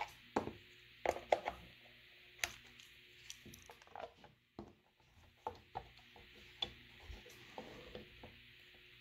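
Scattered light clicks and taps of a small screwdriver backing screws out of an electric kettle's plastic base, and of the base cover being handled and lifted off.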